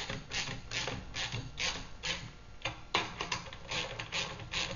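Ratchet wrench clicking in short repeated strokes, about three a second, as a bolt on the sweeper's aluminum Y handle is tightened.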